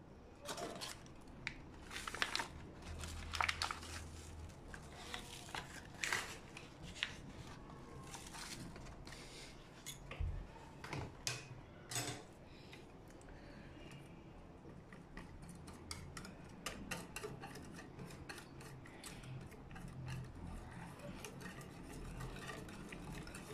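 Scattered clinks and scrapes of a utensil against a metal saucepan as cocoa powder is added to custard mixture. Toward the end, a wire whisk beats the cocoa into the liquid with quick, dense scraping against the pan.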